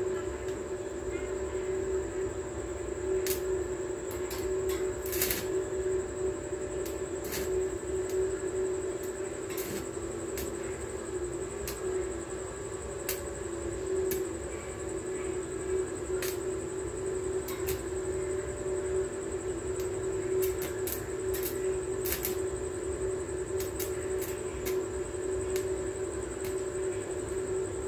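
A steady droning hum with a high, steady whine above it, broken by scattered sharp clicks now and then.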